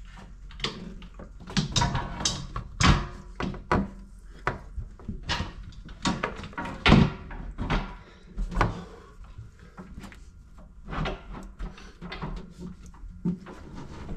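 Irregular metallic clinks and knocks of hands and a tool working the nuts and bolts around the bolted steel cover plate of a steel boat's built-in diesel tank. The loudest knocks come about three and seven seconds in.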